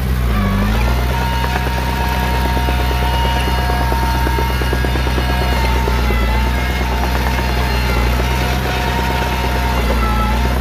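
Heavy diesel earthmoving machine running steadily, with a high whine over the engine and a rapid clatter; the engine note dips briefly about half a second in.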